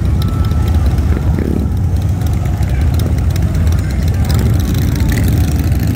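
A vehicle engine running steadily, a loud low rumble.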